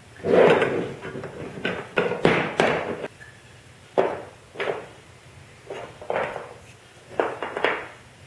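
Wooden parts and a bar clamp knocking and clattering as they are handled on a workbench: about a dozen separate knocks, the loudest about half a second in as the clamp comes off the glued-up block.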